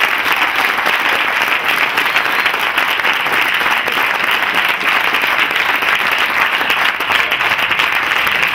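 Audience applauding steadily, many hands clapping at once in a dense, unbroken patter.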